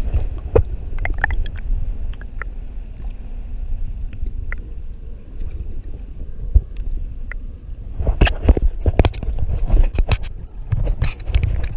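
Muffled water rushing and gurgling around an action camera's submerged waterproof housing, with a low rumble throughout. A cluster of sharp knocks and clicks comes about eight to ten seconds in.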